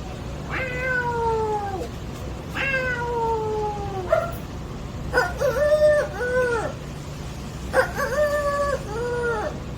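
A man imitating a cat with his voice: a run of meows, the first two long and falling in pitch, then several shorter meows in quick pairs.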